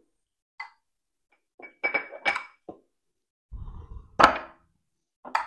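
Spoons scraping and clinking against ceramic dishes as casserole layers are spread, with a short ringing clink about two seconds in and a louder knock about four seconds in.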